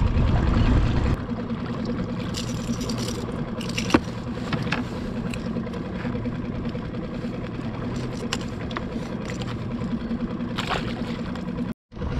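Small boat's outboard motor running steadily at trolling speed, with wind rumble on the microphone in the first second and a few scattered clicks and knocks as a calico bass is brought aboard. The sound cuts out briefly near the end.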